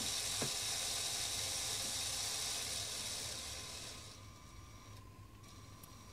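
Battery-powered Lego train motor running at full speed, a steady high whirring hiss, with a short click about half a second in; the whir fades and cuts off about four seconds in.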